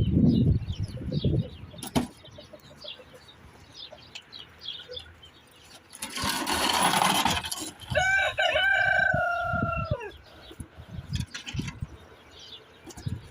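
A rooster crows once in the second half: a long held call that drops away at the end, just after a loud rush of noise lasting about a second and a half. Small birds chirp throughout.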